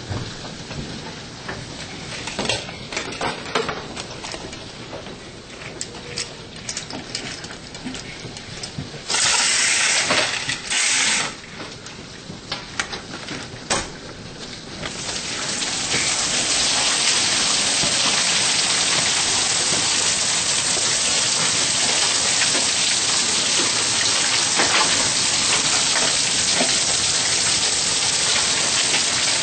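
Hail and heavy rain pelting a wooden deck and balcony railing, at first as noise full of sharp ticks with a loud rushing stretch around ten seconds in. From about fifteen seconds in it grows into a dense, steady hiss.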